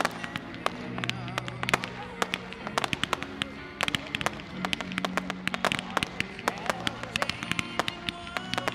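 Fireworks bursting overhead in rapid, dense pops and crackles, several a second, over music with sustained low notes.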